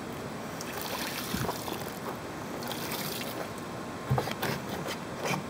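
A steady hiss of outdoor background noise with a few light knocks and rustles, the clearest about four seconds in and near the end, as hands handle a muddy plastic pond skimmer box.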